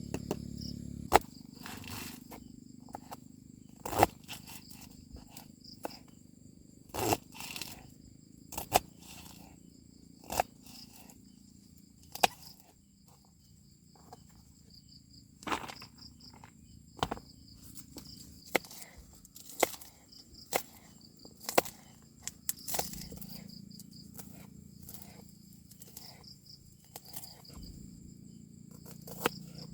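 Sharp knocks and clacks at irregular intervals, over a steady high chirring of crickets.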